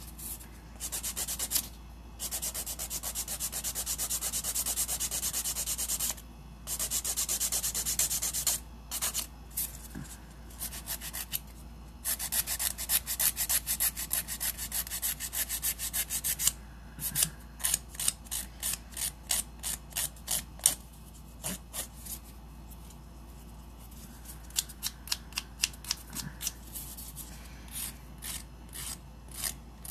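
A hand nail file rasping over acrylic nails, shaping them. It runs in stretches of fast back-and-forth strokes, which give way in the second half to slower, separate strokes with short pauses between them.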